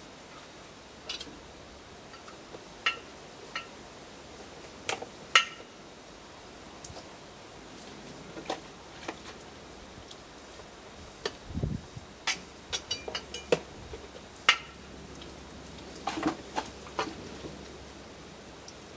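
Irregular clicks and light knocks of a hand tool tapping and scraping against a plastic tub and the steel chamber of a home-made briquette press as wet pulp is scooped in. The clicks come more thickly in the second half, with one dull thump just past the middle.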